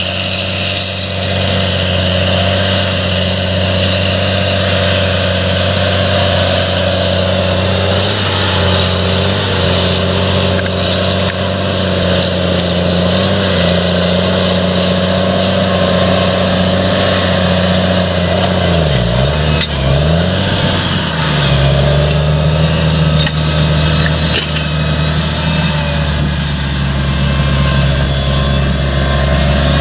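An engine running steadily; its pitch briefly dips and recovers about two-thirds of the way through.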